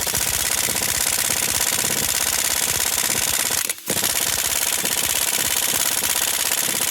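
Impact wrench hammering on a seized, over-torqued lug nut in two long runs of rapid impacts, with a brief break a little over halfway through. The nut does not break free.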